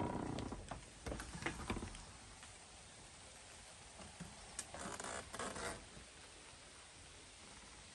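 Rustling and scraping with a few sharp clicks as the person filming moves about and steps out through a door, in two short spells, about the first two seconds and again around the middle. Between and after them there is only a faint, steady outdoor background.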